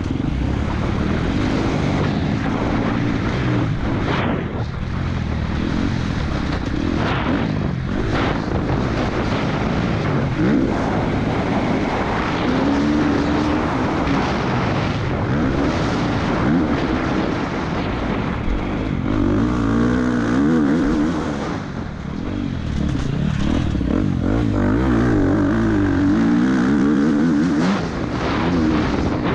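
Husqvarna FC 250's single-cylinder four-stroke engine revving up and down repeatedly through the gears as the bike accelerates and slows on a motocross track, heard close up from an onboard camera.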